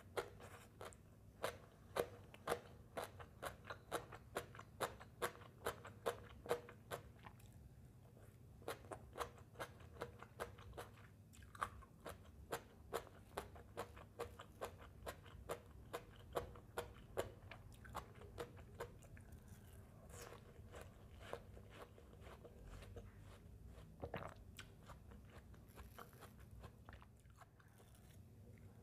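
Close-miked chewing of crunchy green papaya salad, a crisp crunch about twice a second that thins out and grows fainter after the first two-thirds.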